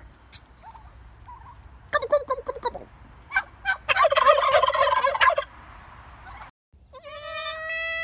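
Turkey gobbling: a short rattling gobble about two seconds in, then a longer one from about four seconds. Near the end a goat bleats in one long call.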